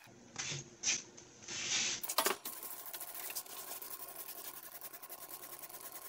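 Antifreeze glugging in three bursts as it is poured from a plastic jug into the engine's cooling system, followed about two seconds in by a few sharp clinks, then a faint fast ticking.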